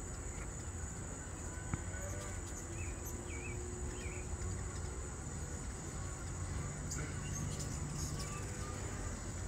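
Steady high-pitched chorus of insects, with a few short bird chirps about two and a half to four seconds in, over a low steady rumble.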